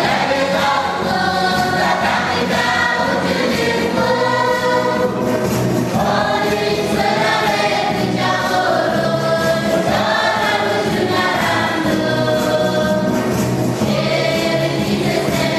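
A choir of women and girls singing together, the song running on without a break.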